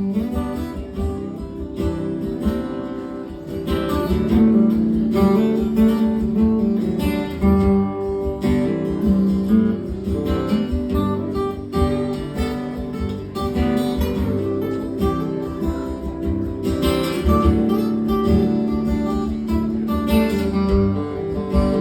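Acoustic guitar playing an instrumental break: strummed chords with picked melody notes.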